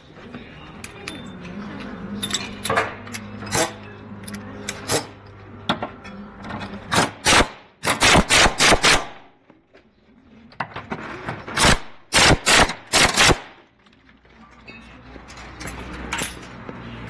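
Sharp metal-on-metal strikes from tool work on a Honda Civic's rear trailing-arm bushing: scattered knocks and clicks, then two quick runs of about five hard strikes each, the second run a few seconds after the first. A steady low hum sits under the start and the end.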